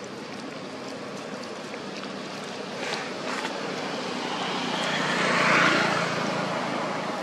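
A distant engine passing: a steady motor hum that swells to its loudest about five and a half seconds in, then fades.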